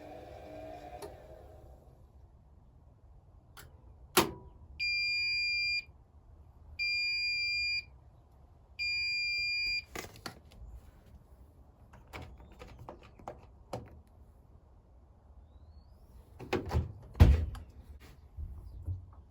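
Bosch WAE24366 washing machine sounding three long, identical beeps about two seconds apart, the signal that the programme has finished. Clicks and knocks follow, the loudest near the end.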